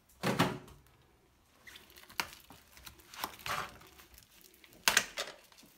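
Kitchen handling noises: a sharp knock with a clatter just after the start, a few lighter clicks and a rustle in the middle, and another sharp knock near the end.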